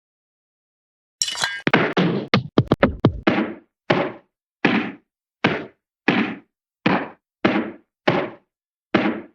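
Hanna-Barbera cartoon hit sound effects. After about a second of silence comes a quick flurry of whacks, the first with a ringing metallic edge. Then follows a steady string of single thwacks, about three every two seconds.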